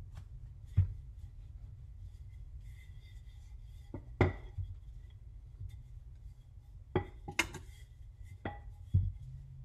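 Wooden rolling pin rolling out pastry dough on a countertop, with about six sharp knocks as the pin is handled, over a low steady hum.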